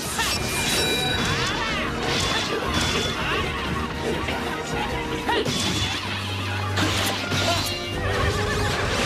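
Action-film battle soundtrack: music over horses whinnying as they charge, with crashing hits of the fight mixed in.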